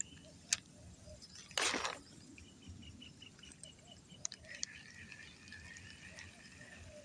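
Outdoor ambience of birds or insects chirping, with a steady high wavering call setting in about four seconds in. A short rushing noise burst about one and a half seconds in is the loudest sound, with a sharp click just before it.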